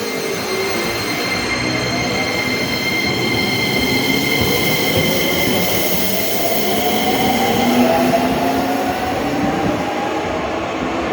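Keisei Main Line electric train pulling away. The whine of its motors rises steadily in pitch as it gathers speed, over the rumble of the wheels. High steady tones sound through the first two-thirds and then stop.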